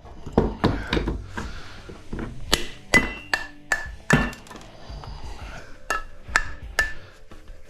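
Hammer blows on a small steel fan motor, driving out the copper stator: about a dozen sharp, irregular metal-on-metal strikes, some ringing briefly.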